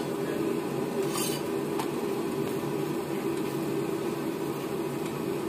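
Metal spatula scraping and tapping on a flat iron griddle (tawa) as parathas are pressed and shifted, with short scrapes about a second in and again just before two seconds. Over this runs a steady low rushing hum.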